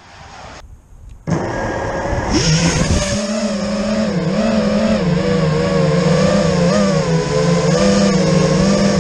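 A 630-gram FPV quadcopter's brushless motors and propellers spool up suddenly a little over a second in. They then run as a loud whine whose pitch wavers up and down with the throttle, heard from the drone's own camera.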